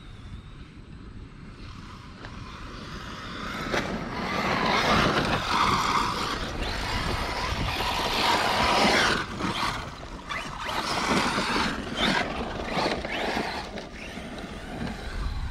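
ARRMA Mojave electric RC desert truck driving hard on loose sandy dirt: its tyres spray sand and grit. The sound gets louder about four seconds in as the truck comes close, then rises and falls as it slides through turns.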